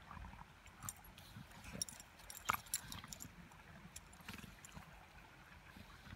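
A Groenendael and a golden retriever play-wrestling in snow: faint scuffling and crunching of snow under the dogs, in scattered short crackles. The sharpest crackle comes about two and a half seconds in.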